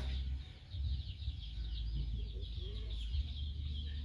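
Small birds chirping in a dense, steady, high-pitched chorus, over a low rumble that comes and goes.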